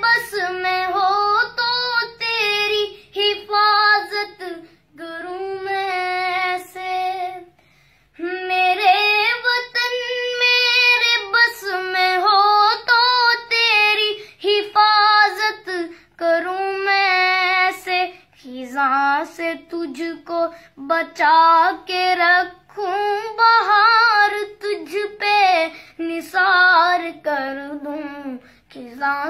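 A high-pitched voice singing a melody in phrases separated by short breaths, with little or no accompaniment; the melody drops lower about two-thirds of the way through.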